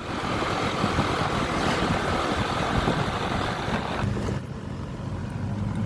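Honda ADV 150 scooter's single-cylinder engine running on a test ride, with heavy wind rush over the engine. About four seconds in the rush drops away and the engine settles to a steady idle.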